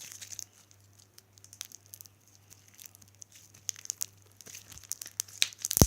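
Slime with foam beads in it being stretched and squished by hand, making irregular small crackles and clicks, with one loud pop near the end.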